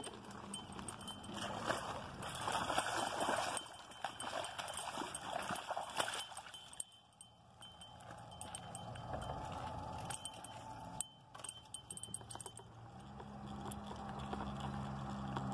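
Irregular clicks, knocks and rustling of a person moving and handling gear on stones and gravel at the water's edge after landing a catfish.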